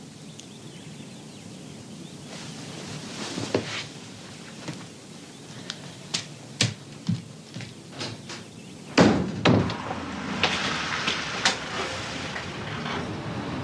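Scattered knocks and clicks of handling and movement, then a loud door thump about nine seconds in, followed by a steady outdoor background hum.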